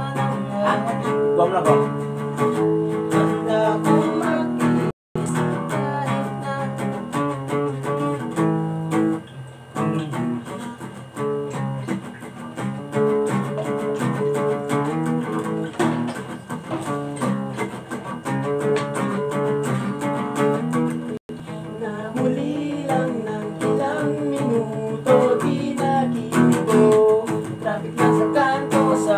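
Acoustic guitar playing chords and picked notes. The sound drops out completely for an instant twice, about five seconds in and again near two-thirds of the way through.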